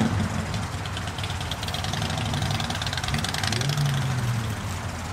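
Car engines running at idle; one engine revs up and back down briefly about three and a half seconds in.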